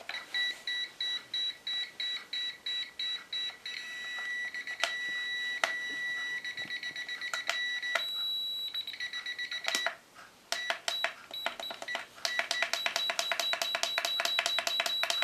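Electronic beeping from an FY-999-2 toy quadcopter's radio transmitter as it is connected and its trim buttons are worked. It starts as short high beeps about four a second, then one long steady beep, more runs of quicker beeps with a few sharp clicks between, and near the end a rapid stream of beeps.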